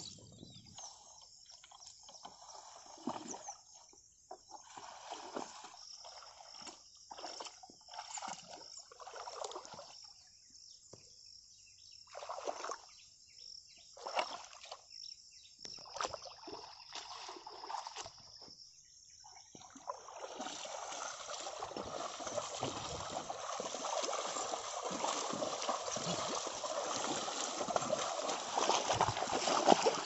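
Water splashing and sloshing in a flooded paddy field. For most of the time it is scattered short splashes as a yoked pair of bullocks shift their feet in shallow water. From about two-thirds in, a continuous sloshing rush takes over and grows louder as the bullocks drag a levelling board through the mud and water, puddling the field for paddy sowing.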